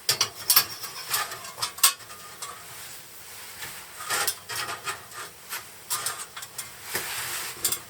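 Metal camp cookware clinking, knocking and scraping in a string of short, sharp clatters, over the faint hiss of a propane canister stove burning.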